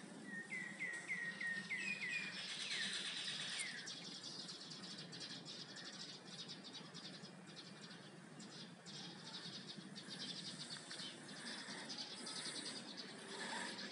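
Bird chirping: a quick run of about six short chirps in the first two seconds, over steady outdoor background noise with a fine rapid rasping high up later on.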